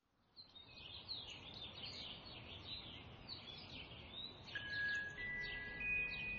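Sparrows chirping, a dense run of quick, short falling chirps. About four and a half seconds in, a few high sustained music notes enter over them.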